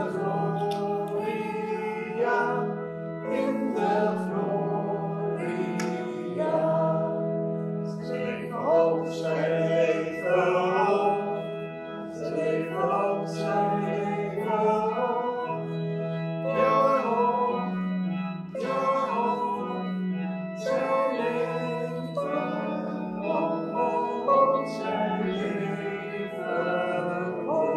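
Singing with organ accompaniment: voices carry a melody over held low organ notes.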